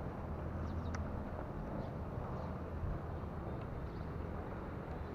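An engine running steadily with a low, even hum, and a few faint ticks over it.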